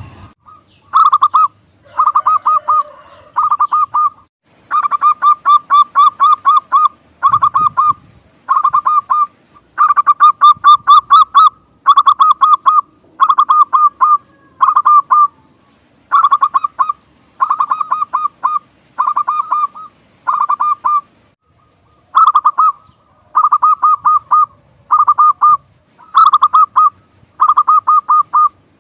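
Zebra doves (perkutut) calling: short staccato cooing trills of quick notes, repeated about once a second.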